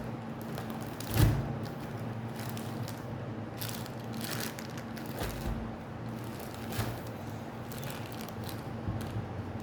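Handling of sanitary pad packaging: the plastic wrapper crinkling and rustling in short bursts, with a single knock about a second in. A steady low hum runs underneath.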